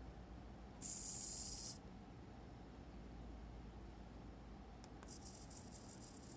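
Small servo motor of a model railway level crossing barrier, driven by a microcontroller, whirring as it swings the gate arm: one short, high-pitched whir about a second in, then a longer, grainier one with a fine rapid ticking near the end.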